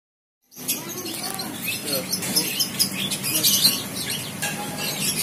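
Birds chirping: many short, high-pitched chirps in quick succession, with faint voices underneath.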